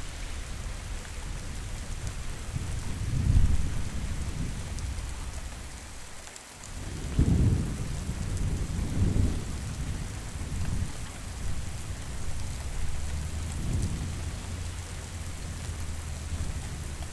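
Steady rain with rolling thunder. Low rumbles swell and fade several times, the strongest about seven seconds in.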